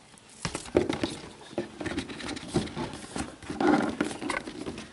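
Cardboard shoebox being opened and handled, its tissue paper rustling and crinkling in a run of irregular crackles and light knocks, louder nearly four seconds in.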